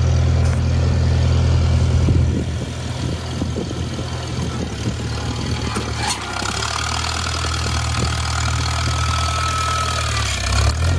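Farmall Cub tractor's four-cylinder engine running under load, pulling a homemade I-beam grading blade through rocky soil. The engine note drops a little about two seconds in, and a faint steady whine joins about six seconds in.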